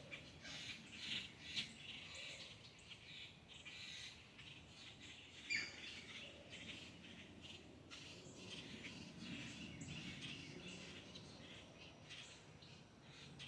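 Birds chirping: a faint, continuous scatter of short, high calls, with one louder call about five and a half seconds in.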